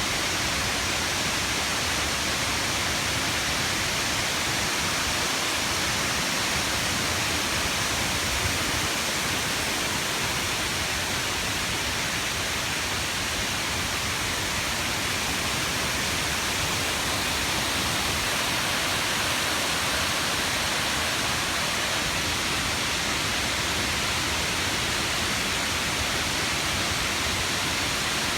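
Shiraito Falls, a wide curtain of many thin streams of spring water pouring down a curved cliff, making a steady rush of falling water.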